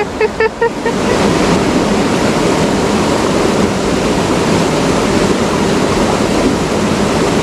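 Fast-flowing mountain river rushing over rocks, a steady water noise close to the microphone that sets in about a second in.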